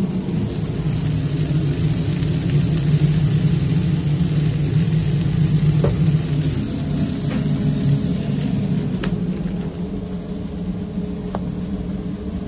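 Burgers sizzling on the grill over a steady low machine hum, with a few sharp clicks scattered through.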